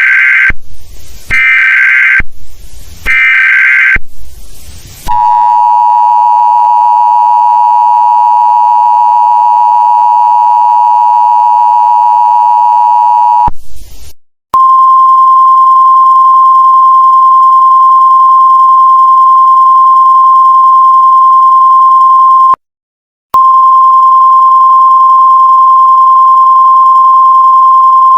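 Emergency Alert System tones. First come several short, harsh digital data bursts of the alert header. Then the two-note EAS attention signal holds steady for about eight seconds, and after a short gap a single pure steady alert tone of the weather-radio kind sounds, breaking off briefly near the end.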